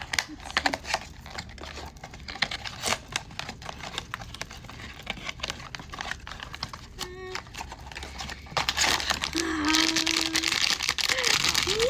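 Pop Mart blind-box packaging being unwrapped by hand: plastic and foil crinkling and tearing in many small crackles. It grows louder and denser about nine seconds in.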